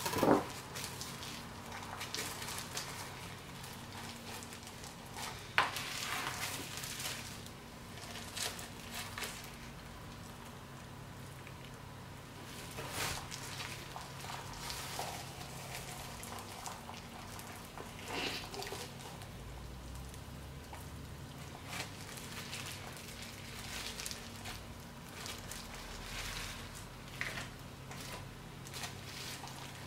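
Gloved hands handling a whole raw redfish on a plastic cutting board: scattered soft rustles, crinkles and taps from the plastic gloves and the fish, over a faint steady low hum.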